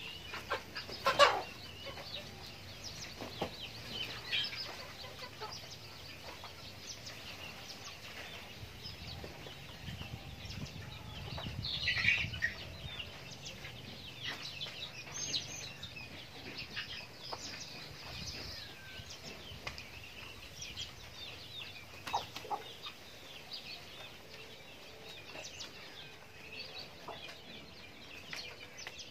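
Chickens clucking and making short chirping calls while feeding at a bamboo trough. A single sharp knock about a second in is the loudest sound, and a short burst of louder calls comes about twelve seconds in.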